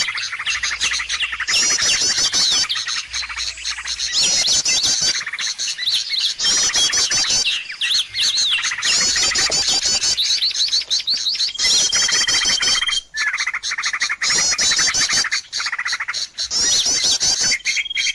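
Bird-lure recording of many small birds chirping and trilling noisily, with fast runs of high chirps that repeat again and again. A single long steady whistle comes in about twelve seconds in and again near the end.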